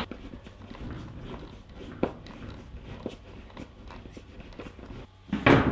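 Screws being turned by hand with a screwdriver into a wall-mounted pegboard panel: scattered small clicks and knocks, with a louder knock near the end.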